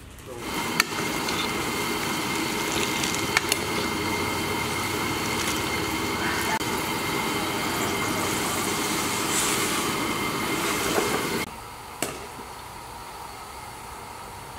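Orange sauce boiling hard in a pan: a steady rush of bubbling with a few sharp pops, stopping abruptly about eleven and a half seconds in.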